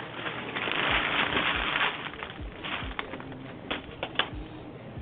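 Hands handling PC parts and their packaging: a rustle in the first couple of seconds, then a few sharp clicks.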